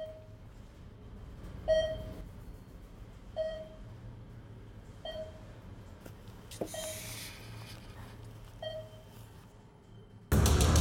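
An electronic beep sound effect, a short tone that fades at once, repeating six times about every second and three-quarters over a low hum. Music comes in suddenly just before the end.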